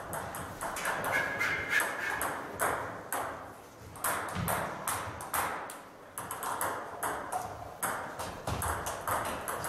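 Table tennis rallies: a plastic ball clicking off bats and table tops in quick, uneven succession, with play at more than one table at once.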